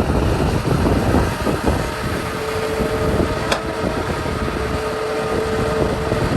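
Heavy diesel earthmoving machinery running at a construction site: a steady engine drone with rumble. A steady high whine joins in about two seconds in, and there is a single sharp click about halfway through.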